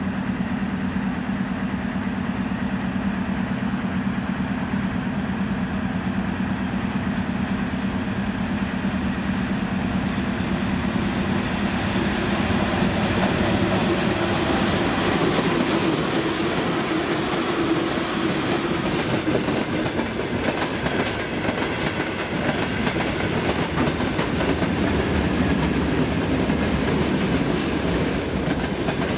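VL11 electric locomotive with a freight train approaching and passing at speed. A steady low hum gives way to the rumble of the train, and the wagons' wheels clickety-clack over the rail joints, the clicks coming thicker as the wagons run by.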